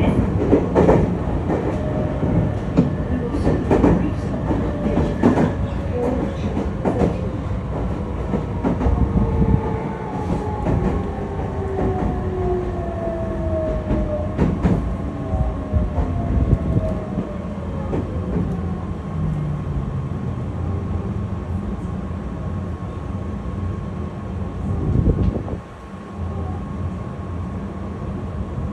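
Meitetsu electric commuter train heard from inside the car, rumbling with its wheels clicking over rail joints, the clicks spacing out as it slows. The traction motors' whine falls steadily in pitch as the train brakes on the approach to a station. There is a louder knock near the end.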